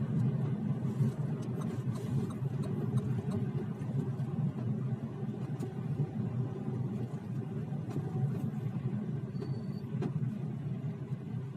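Lada Vesta driving with a steady low road rumble, broken by a few irregular sharp knocks from the suspension, the knock the owner is recording as a fault.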